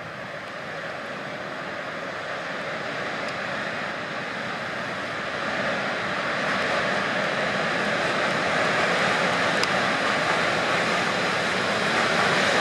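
PKP Cargo ET22 electric locomotive hauling tank wagons, approaching with a steady rumble of wheels on rail that grows steadily louder.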